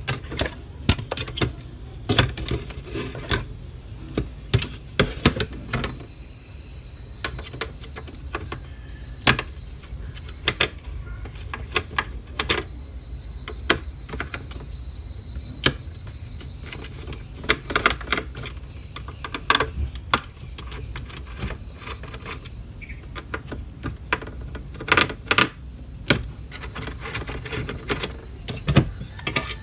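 Irregular sharp clicks and taps of a screwdriver and small parts against a Toshiba laptop's plastic case and metal frame as it is taken apart, over a low steady hum.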